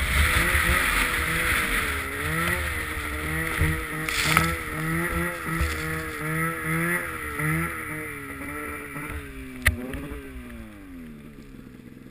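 Snowmobile engine running hard through deep snow, its revs rising and falling, with a rushing hiss of snow and wind over it. Near the end the revs drop away steadily as the sled slows to a stop, just after a single sharp click.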